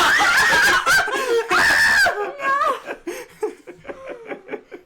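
A group of people laughing and shrieking, loud for the first two seconds, then trailing off into shorter bursts of laughter.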